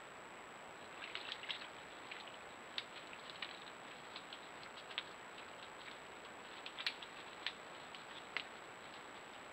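Scattered small crackles and ticks of dry leaf litter and twigs as wild boar piglets and an adult wild boar forage around a tree stump, starting about a second in, over the trail camera microphone's steady hiss and a faint high electronic whine.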